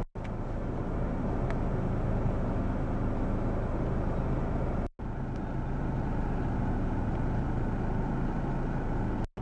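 Steady hum of a car heard from inside the cabin, the engine running with a low drone and an even wash of noise. The sound drops out for an instant about five seconds in and again near the end.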